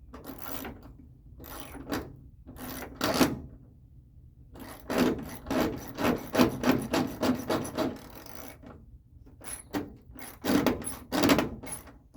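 Socket ratchet wrench being worked back and forth on a bolt, giving short rasping strokes. A few scattered strokes come first, then a quick run of about four a second from about five to eight seconds in, and a few more near the end.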